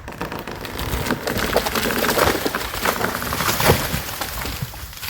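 Dead hardwood tree falling: a long crackling crash of branches snapping and breaking, loudest around the middle, as it comes down and breaks the top off a neighbouring tree.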